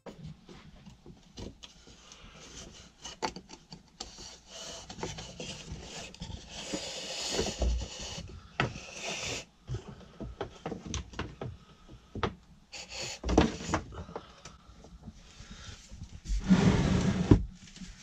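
Irregular knocks, clatters and scraping from hands-on fitting work, with a louder scrape lasting about a second near the end.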